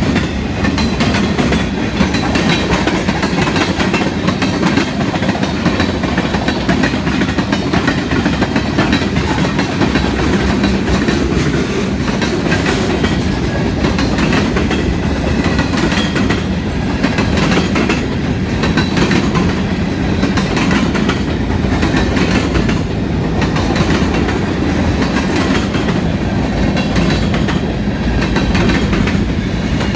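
Freight cars of a passing train rolling by: a steady rumble of steel wheels on the rails, with repeated clicking and clacking over the rail joints.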